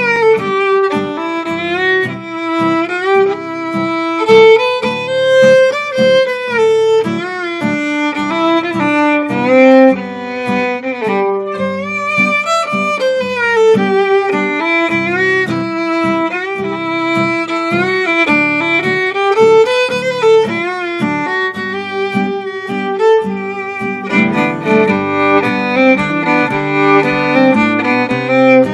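Old-time fiddle tune played on fiddle with acoustic guitar: the fiddle bows the melody while the guitar strums a steady rhythm underneath. The fiddle part grows fuller for the last few seconds.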